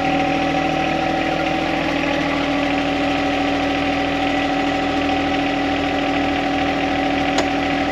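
John Deere compact tractor's three-cylinder diesel engine running steadily, with a steady whine over it.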